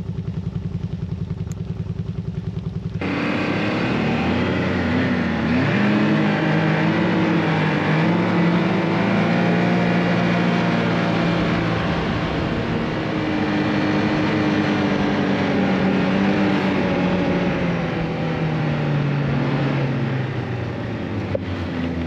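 A vehicle engine idling with an even low pulse, then from about three seconds in running under way, its pitch rising and falling, and easing off near the end.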